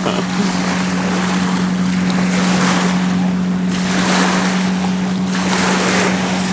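Wind buffeting the microphone over waves washing at the shore, swelling in gusts, with a steady low hum underneath.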